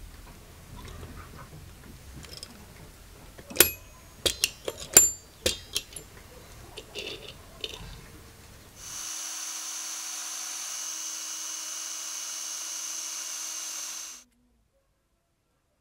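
Sharp metallic clicks and taps of a steel hand tool against brass spoon-lure blanks on a steel block, a quick cluster of them with short ringing a few seconds in. Later a small electric drill runs steadily with a constant whine for about five seconds and then stops abruptly.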